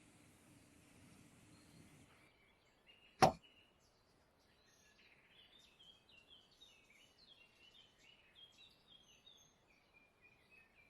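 One sharp tap about three seconds in, then small birds chirping in quick, high, falling notes through the rest.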